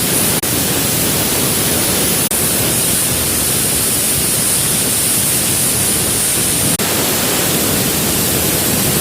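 CNC plasma torch cutting 8 mm stainless steel plate: a loud, steady hiss, broken by three momentary dropouts.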